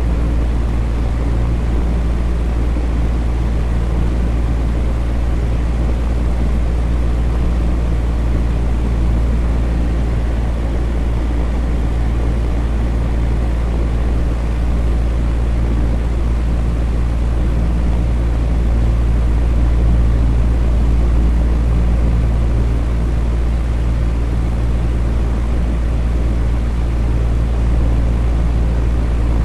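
Electric fan running steadily: a constant airy whoosh over a low hum.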